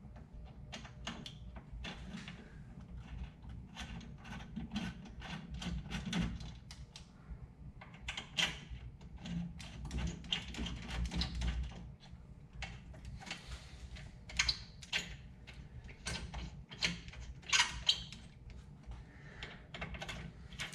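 Irregular small metallic clicks and taps of nuts and bolts being handled and threaded on by hand while reassembling a GAST PCA-10 compressor head.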